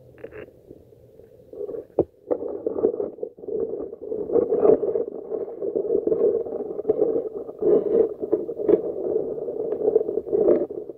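Muffled underwater noise from a phone held underwater on a selfie stick: water swishing against the phone and handling knocks, with crackles and a sharp click about two seconds in. It grows louder from about four seconds in.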